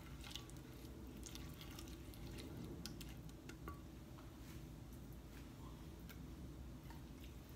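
Silicone spatula stirring a thick yogurt-and-spice marinade in a glass baking dish: faint wet squishing with scattered small clicks.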